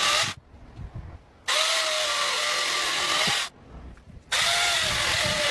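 Angle grinder converted into an electric chainsaw, its motor running in bursts with a steady whine. It stops about a third of a second in, runs again from about one and a half seconds to three and a half, then starts once more near the end.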